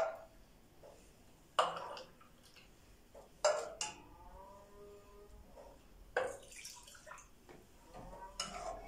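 A ladle scooping milk from a bowl and pouring it into small clay pots. There are about five separate splashes and clinks, roughly one every one to two seconds.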